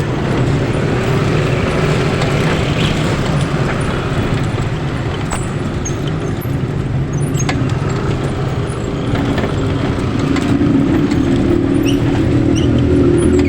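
Road vehicle engine running steadily with road and traffic noise, growing louder about ten seconds in.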